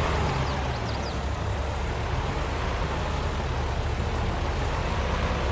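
Engine of heavy harvest machinery running steadily at a constant speed, giving an even low drone.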